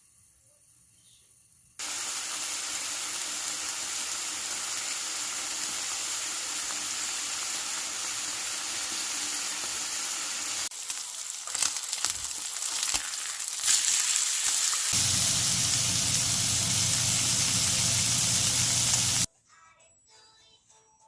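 Food frying and sizzling in a hot pan, starting suddenly about two seconds in, with clicks and knocks of a utensil stirring it partway through. It cuts off sharply near the end.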